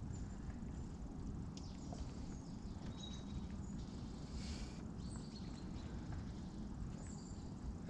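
Small birds chirping in short high calls now and then over a steady low rumble.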